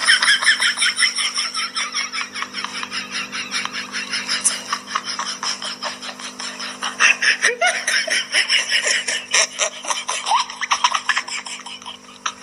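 A person laughing hard and without a break in quick, rapid pulses, over a steady low hum.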